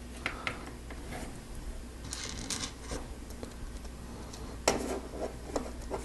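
Plastic Lego Technic pieces clicking and rubbing as they are handled and fitted together, with a louder clatter of parts near the end.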